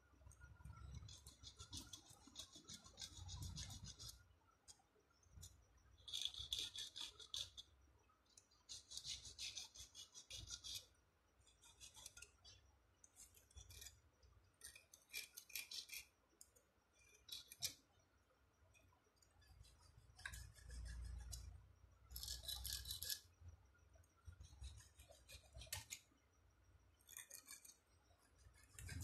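A thin hand tool scraping back and forth on the wire leads of a Lexus LS 430 alternator's stator, cleaning them for soldering. It comes in about a dozen irregular scratchy bouts of up to two seconds each, with short quiet gaps and a few low handling bumps.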